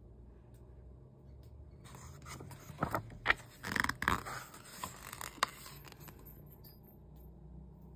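A picture book's page being turned by hand: about two seconds in, a few seconds of paper rustling and crackling with several sharp clicks.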